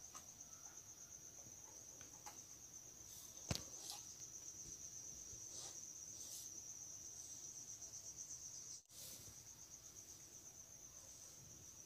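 Faint, steady, high-pitched insect chirring with an even pulse, and a single sharp click about three and a half seconds in.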